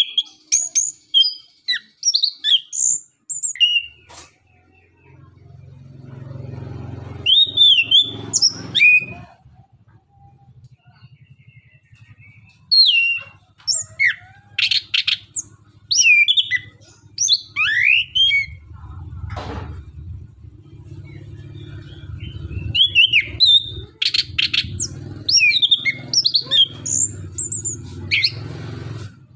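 Caged chestnut-capped thrush (anis kembang) singing in loud bursts of sharp, high whistled notes, quick slurred glides and rapid chattering runs, with short pauses between phrases.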